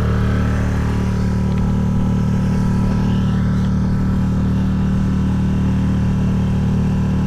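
Small motorboat's engine running steadily while the boat is under way, a constant low hum at one even pitch.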